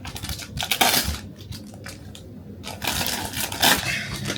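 Packaging rustling and crackling in irregular bursts as it is handled and opened by hand.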